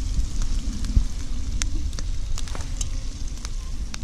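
Diced onions and salt pork frying in hot fat in a cast iron Scotch bowl over a wood fire: a steady sizzle with scattered sharp pops, over a low rumble.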